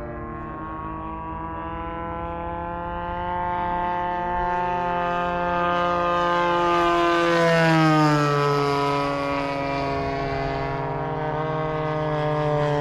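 Engines of radio-controlled model warplanes flying overhead, droning at several pitches at once. The sound grows louder, and about seven to eight seconds in the pitch drops as a plane passes by, then it fades a little.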